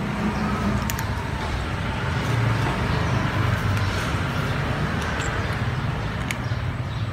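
Steady low rumble of motor traffic, with a few faint clicks.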